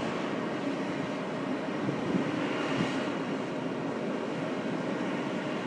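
Steady engine drone of work trucks idling at a street intersection in the early morning.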